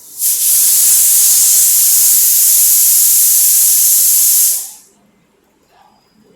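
A loud, steady hiss that starts abruptly, holds level for about four and a half seconds, then fades out quickly.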